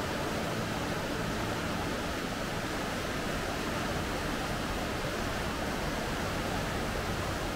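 Steady rushing of a waterfall, a continuous even roar of falling water.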